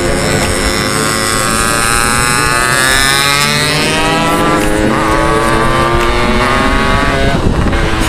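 Yamaha RX-King's 135 cc two-stroke single-cylinder engine accelerating on the road. Its pitch climbs, drops about five seconds in at a gear change, then climbs again.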